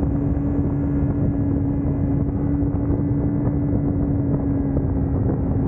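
Kawasaki Ninja motorcycle engine running at steady cruising revs, a drone holding one even pitch, over a haze of wind and road noise.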